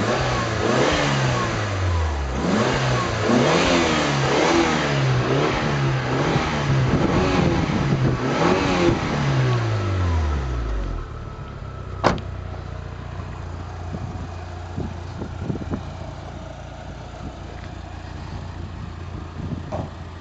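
Mitsubishi Lancer Evolution 6.5's turbocharged 2.0-litre four-cylinder engine revving up and down several times, its pitch rising and falling. About 11 seconds in it drops back to a quieter steady idle, with one sharp click a second later.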